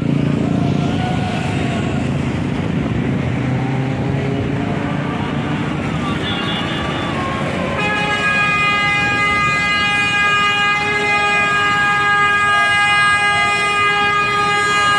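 Street traffic with motorbikes running past, then about eight seconds in a loud horn starts one long, steady blast that holds without a break.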